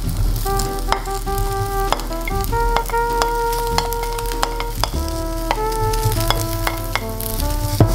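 Chopped cabbage and bell peppers sizzling as they are pushed off a plate into a hot steel frying pan of sausages and onions, with sharp clicks of a wooden spatula against the plate and pan. Background music with slow held notes plays throughout.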